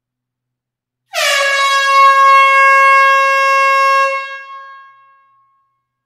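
Air horn giving one long blast: it starts abruptly about a second in, dips slightly in pitch at the onset, then holds a steady tone for about three seconds. It dies away over about a second and a half, echoing in an enclosed hall.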